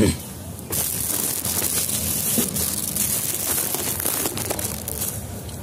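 Phone handling noise: a bump on the microphone at the start, then several seconds of close, dense rustling and crinkling as the phone rubs against a jacket.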